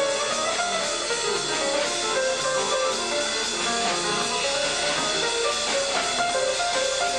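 Small jazz band playing live: drum kit and piano under a lead line of held and moving notes.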